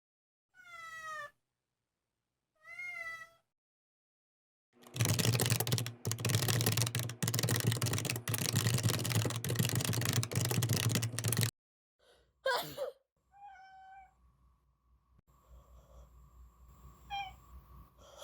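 A cat giving short, small meows: two near the start, then, after several seconds of loud rustling noise, a person sneezes once and the cat meows right after it, and once more near the end. The cat is meowing in reaction to the sneeze.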